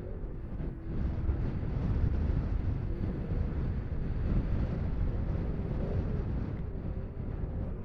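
Off-road race vehicle engines running, a faint wavering engine note under a heavy, steady rumble of wind on the microphone.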